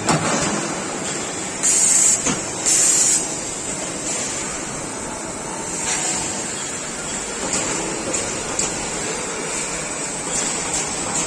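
Automated electric-kettle production line machinery running steadily, with two short blasts of hiss about a second apart near the start and a few light clicks.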